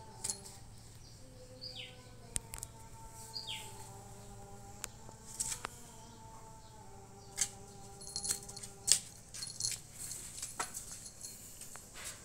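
Scattered light taps and scratchy scuffs of a kitten's paws and claws batting at a cockroach on a bare concrete floor. Two short falling chirps sound in the background in the first few seconds.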